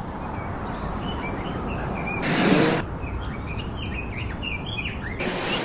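Small birds chirping over a steady outdoor background of distant noise, broken twice by a short loud rush of noise, about two seconds in and near the end.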